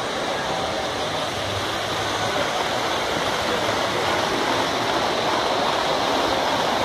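Steady rushing rumble of S gauge model trains running on the layout's track, with no distinct clicks or whistles standing out.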